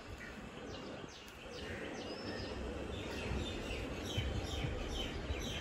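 Small birds chirping: many short, quick chirps, most of them in the second half, over a faint low rumble.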